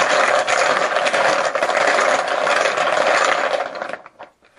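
Poker chips being shaken and mixed together: a dense, continuous clatter of many small clicks that stops abruptly about four seconds in.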